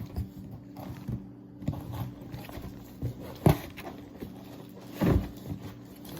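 A few light knocks and handling noises, the loudest about three and a half and five seconds in, over a steady low hum.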